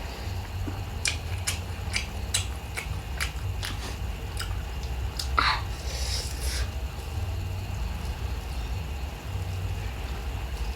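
Close-up chewing of a bite of grilled rib, which is a bit chewy: crisp clicks of teeth and jaw about two to three a second, then one louder mouth sound about five seconds in, over a steady low hum.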